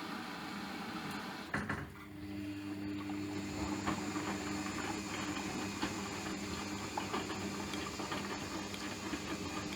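Hotpoint washing machine running: at first an even hiss, then a click about one and a half seconds in. After that comes a steady motor hum as the drum turns, with scattered light taps.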